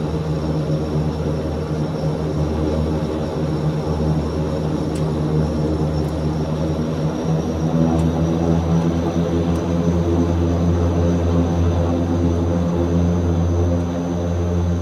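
Antonov An-26's Ivchenko AI-24VT turboprop engines running with a steady low drone and a thin high whine that rises slowly in pitch.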